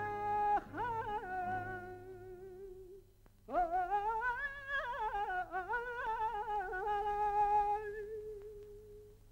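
A man's solo singing voice in long, held phrases with heavy vibrato and wavering ornaments. After a short breath about three seconds in, a new phrase slides up and is held, then fades near the end. A steady low hum from the old soundtrack runs beneath.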